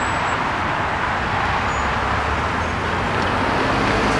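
Steady road traffic noise as vehicles move over the crossing, with a pickup truck's engine growing louder near the end.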